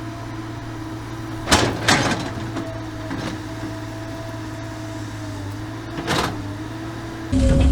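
Excavator's diesel engine running steadily, with a few sharp metallic clanks about a second and a half, two and six seconds in. Near the end the engine steps up to a louder, higher throttle.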